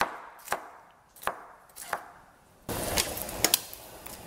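Chef's knife chopping a green bell pepper on a wooden cutting board: four sharp knocks, one every half second or so. About two-thirds of the way in, a steady hiss from the stove begins, with a couple of clicks as the chopped pepper goes into the pot.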